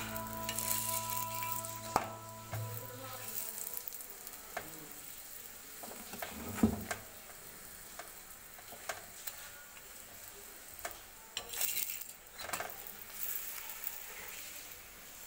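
Rice-flour roti frying in oil on a tawa, a faint steady sizzle, with a metal spatula scraping and tapping against the pan now and then; the loudest is a single knock a little past the middle.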